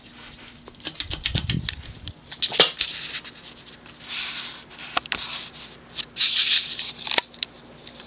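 Hunter 1886 Series ceiling fan's small 172 × 15 mm spinner motor running with a steady low hum as the fan is switched to medium speed. A burst of clicks and rattles comes about a second in, from the pull-chain switch and chain. Gusts of air from the spinning blades hiss past the microphone several times after that.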